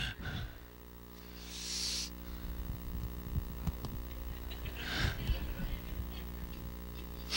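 Steady low electrical hum from a sound system in a pause between words, with a soft hiss about a second and a half in and another faint one about five seconds in.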